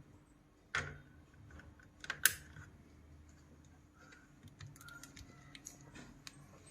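Light clicks and taps of small hard objects being handled, irregular, with a knock about a second in and one sharp, loud click a little after two seconds.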